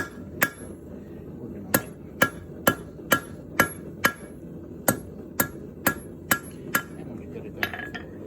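Hand hammer blows on the heated bronze stem over the anvil's edge, cutting it off: about a dozen sharp ringing strikes, roughly two a second, with a short pause a little past halfway.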